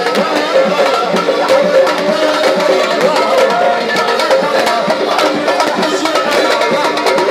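Live Tunisian folk music: hand drums keep a fast, dense rhythm under a wavering melody line.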